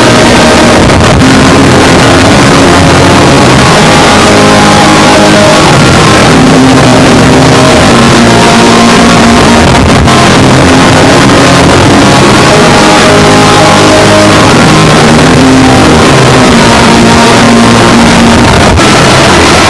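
Harsh noise/drone music: a dense, very loud wall of static that never lets up, with held tones rising out of it and fading back in turn.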